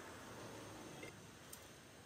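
Soto portable gas stove's burner hissing steadily and faintly under a pot, with a couple of small ticks in the middle.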